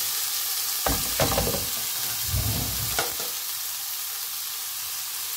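Cherry tomatoes, shallot, garlic and ginger sizzling steadily in hot oil in a frying pan, with a few brief low knocks about a second in and again around two to three seconds in.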